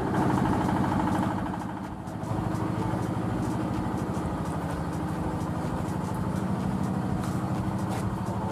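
A small engine idling steadily, with a short dip in level about two seconds in.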